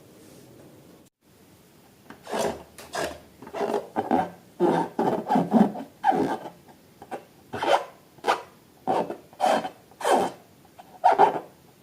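A series of short, rasping rubbing strokes, about two a second, starting about two seconds in, loud and irregular.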